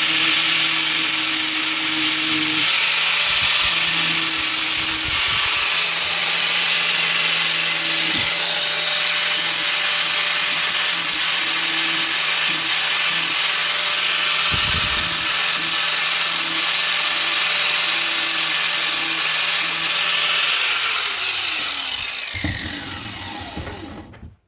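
Angle grinder with a flap disc grinding the steel head of a cold chisel. The motor runs at a steady pitch under the grinding noise, which comes and goes. Near the end the grinder is switched off and its whine falls in pitch as it spins down.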